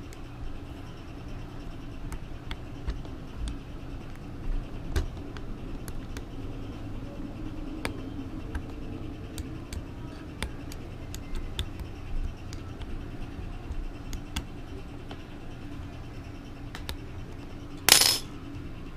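Small metal clicks and ticks of a 2.5 mm Allen key turning screws on a 3D printer frame, scattered and irregular, over a faint steady hum. There is one louder handling clatter near the end.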